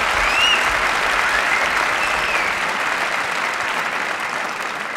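Large arena crowd applauding, a dense steady clapping with a couple of rising whistles over it early on and around two seconds in; the applause slowly dies down toward the end.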